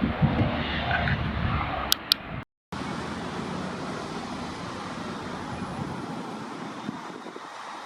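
A road vehicle passing close by with a loud rumble, with two sharp clicks about two seconds in. The sound then cuts out completely for a moment and comes back as a steady hiss of traffic and wind.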